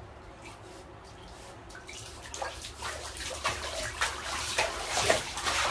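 A Shiba Inu splashing in shallow bathwater in a tub. After a quiet start, irregular splashes begin about two seconds in and grow louder and more frequent.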